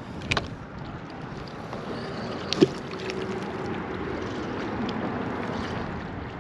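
A baited line cast out with a rod and reel: a sharp click about two and a half seconds in, over steady wind and water noise.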